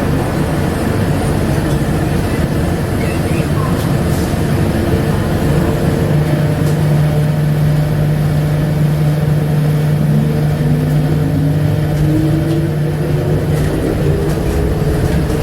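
Rubber-tyred Bombardier APM100 light-rail car running, with a steady rumble and a low hum. About ten seconds in, a whine starts to rise steadily in pitch as the train speeds up.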